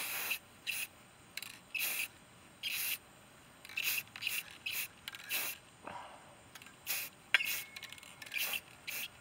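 Aerosol can of Rust-Oleum aluminum spray paint hissing in many short, irregular spurts.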